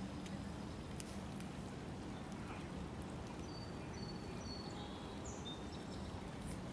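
Steady low outdoor background noise by a shallow creek, with a few faint, short, high-pitched bird chirps near the middle.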